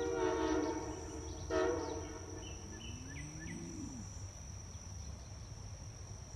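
Nathan Airchime M3H three-chime train horn blowing a chord on 120 psi air: a blast that cuts off about a second and a half in, then a second short blast of about half a second. After it, a few faint bird chirps over a steady faint high tone.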